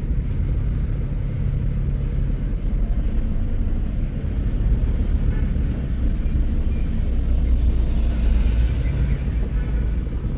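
Steady low rumble of a car's engine and road noise heard inside the cabin, with a brief rise of hiss about eight seconds in.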